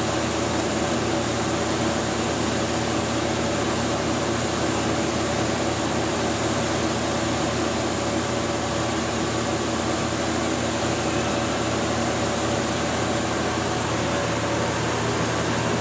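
Walter Helitronic Vision CNC tool grinder running its warm-up program: a steady machine hum and hiss with several steady tones.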